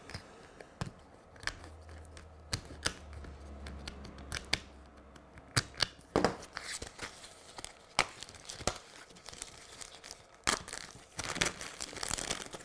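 Packaging of a plastic model kit being torn open and its clear plastic bag crinkled, in scattered sharp rustles and clicks.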